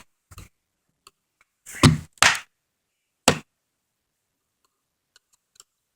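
About four sharp plastic clicks and knocks in the first three and a half seconds, then a few faint ticks, as the back case of an RCA 10-inch tablet is pried off with a flat tool and its clips pop.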